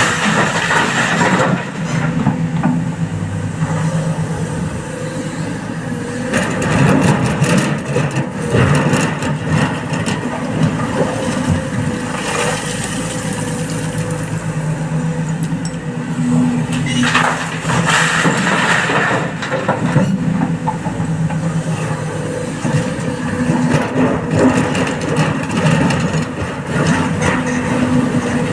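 Excavator diesel engine running steadily under load, swelling louder several times as the hydraulics work through the digging and loading cycle, with bursts of rattling noise at each swell.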